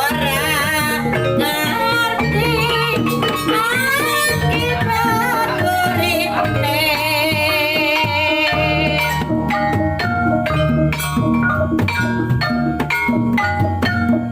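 Javanese kuda lumping accompaniment music: a wavering, vibrato-laden melody line over drums and gong-like low tones, turning from about nine seconds in to dense, fast percussion strokes.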